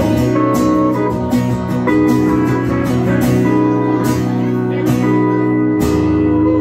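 Live country instrumental: an acoustic guitar strummed in a steady rhythm, with a pedal steel guitar holding long notes over it.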